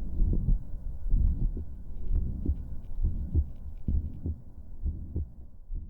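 A human heartbeat heard through a stethoscope, lub-dub pairs a little under a second apart, slow and not quite regular. It carries what some call a murmur.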